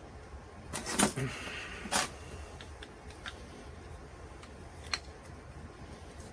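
A few sharp knocks and clicks of parts and tools being handled on a workbench, the loudest about one and two seconds in and another near five seconds, over a steady low hum.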